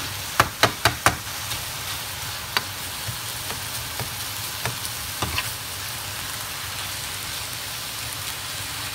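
Bean sprouts, carrot and minced pork sizzling in a frying pan as they are stir-fried with a spatula. Four quick knocks of the spatula against the pan come about half a second in, followed by a few scattered taps.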